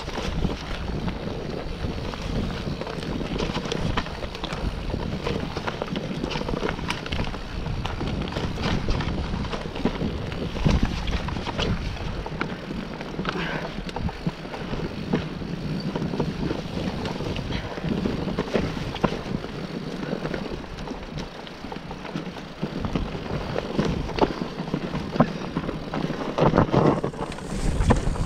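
Electric mountain bike riding over a dirt forest trail: tyres rolling on dirt and roots, with the bike rattling and knocking over bumps and wind buffeting the microphone.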